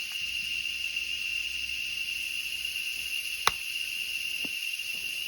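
A steady, high-pitched drone of tropical insects, with one sharp click about three and a half seconds in.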